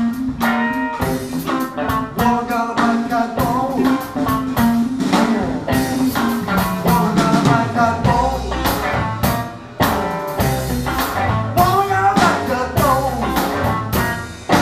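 Live electric blues band playing: electric guitars over bass and drum kit, with a steady beat. About halfway through, a low run steps downward before the bass comes in heavier.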